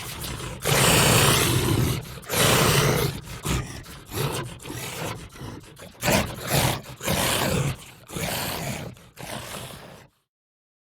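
Designed monster creature sound effects: a series of loud, rough roars and growls, one after another, that cut off abruptly about ten seconds in.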